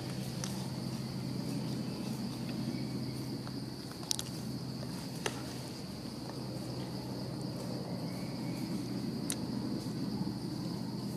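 Steady high-pitched insect chorus from the forest canopy, with a low steady hum underneath and a few sharp clicks, the clearest about four and five seconds in.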